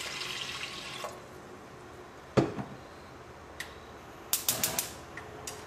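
Water pouring into an aluminium pressure cooker over washed toor dal, trailing off after about a second. Then a single knock about two and a half seconds in and a quick run of sharp clicks near the end.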